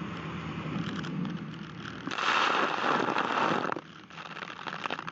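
Gurza-M armoured artillery boat running fast through choppy water: a steady engine and hull drone with rushing water. About two seconds in, a wave breaks over the bow and spray dashes loudly over the microphone for under two seconds, then dies away into scattered crackling drops.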